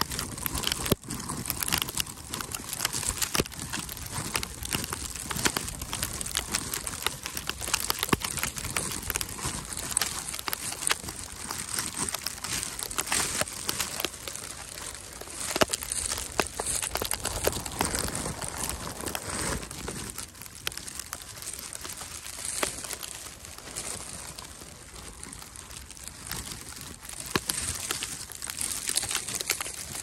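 Footsteps crunching and squeaking through fresh snow as someone walks, with a steady hiss of snow and wind behind them.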